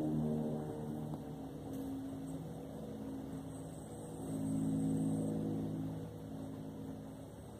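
A motor engine droning at a steady pitch. It swells about four to five seconds in and fades toward the end.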